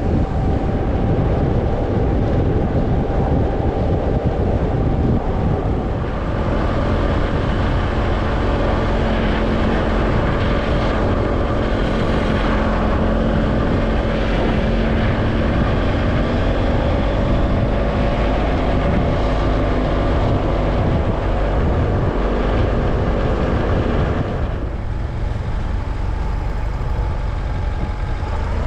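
Motorcycle engine running under way, with wind rush on the microphone. The engine note rises and falls with the throttle and eases off about 24 seconds in.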